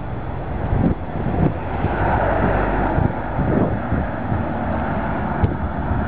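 Outdoor roadside noise: wind buffeting the microphone over a steady vehicle drone, swelling about two seconds in, with a few faint knocks.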